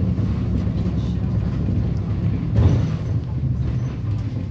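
Inside a city bus: the engine and running gear make a steady low drone as the bus rolls slowly through a terminal, with one short knock about two and a half seconds in.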